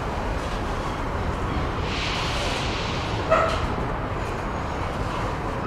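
A dog barks once, a single short bark about three seconds in, over a steady background rumble.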